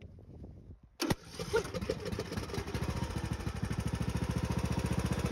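John Deere E110 lawn tractor engine starting: a sharp click about a second in, then the engine catches and runs with a steady pulsing beat, gradually getting louder.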